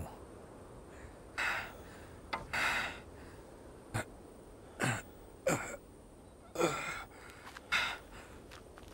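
A man's ragged breathing in despair: several separate gasps and sighs, a few with a short falling catch in the voice, like a man weeping after praying to die.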